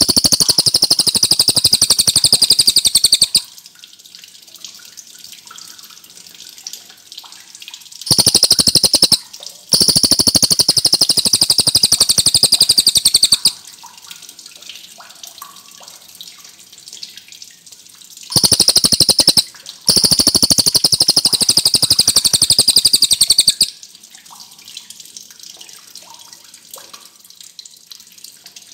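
Cililin bird singing long, very rapid high trills, five runs of about one to four seconds each with short pauses between, and faint scattered chirps in the gaps.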